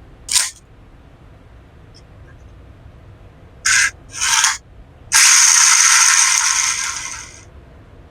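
Hard plastic parts being handled, scraping and rasping: one short scrape, two brief rasps a little over halfway, then a steady rasping scrape of about two seconds that fades out.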